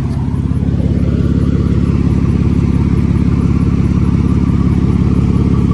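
Mercedes-Benz C300's V6 engine idling, with a steady, rapid exhaust pulsing from an exhaust leak. The exhaust piping has cracked off.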